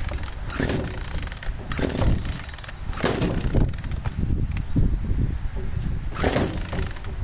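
Recoil starter cord of a Craftsman chainsaw being yanked several times with the choke on, the starter mechanism rattling on each pull, without the engine catching and running.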